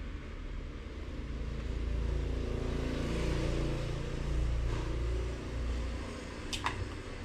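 Low rumble of a motor vehicle that swells for a few seconds and then fades, with a brief high squeak near the end.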